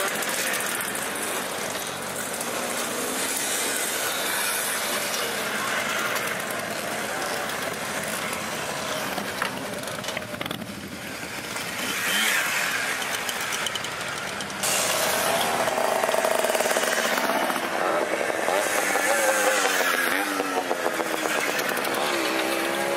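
A stream of old mopeds and small motorcycles riding past one after another, their engines rising and falling in pitch as each goes by. It gets louder about fifteen seconds in as the nearer bikes pass.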